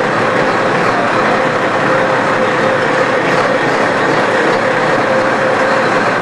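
Steady machinery noise with a constant mid-pitched hum running over it.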